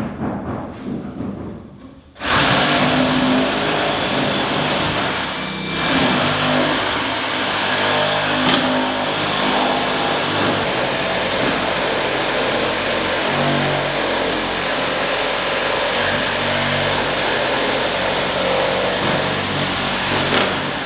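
A power tool running steadily as it cuts, starting suddenly about two seconds in.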